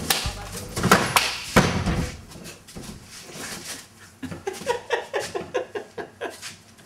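A few loud knocks and thuds in the first two seconds as a coconut is caught and handled, then a woman laughing in a quick run of short sounds about four seconds in.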